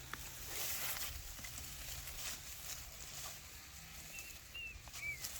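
Outdoor rural ambience: a steady low hum and soft rustling with scattered light clicks, and three short high chirps near the end.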